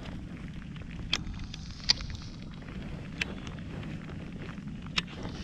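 Steady low wind rumble on the microphone, broken by four short sharp clicks or taps spread about a second apart.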